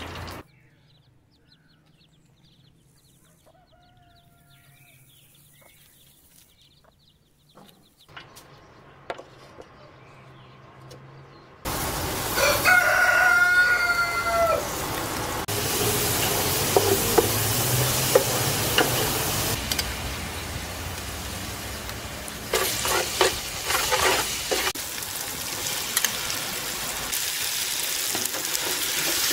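A rooster crows, faintly in a quiet stretch and then loudly in one call of about two seconds. Just before that loud crow, sliced onions start sizzling in hot oil in a large metal pot, and they keep frying while a wooden spoon stirs and scrapes them.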